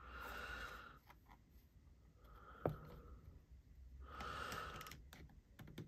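A man breathing out twice, about four seconds apart, as he strains to work a knife blade into a tight leather sheath, with a single small click between the two breaths.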